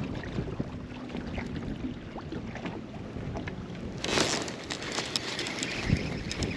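Wind buffeting the microphone over a boat, with scattered light clicks and knocks and a brief louder gust of noise about four seconds in.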